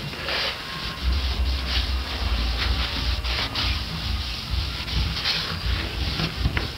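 A rag wiping Minwax oil stain off Douglas fir woodwork in repeated rubbing strokes, cloth scuffing across the wood.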